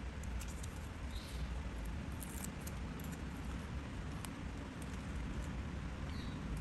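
Paper and craft tools being handled at the work surface: scattered light clicks and taps over a low, steady rumble, with two faint short squeaks, one about a second in and one near the end.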